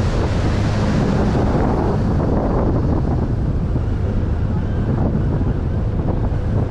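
Wind buffeting the microphone over the steady low drone of a small river cruise boat's engine, with water rushing along the hull.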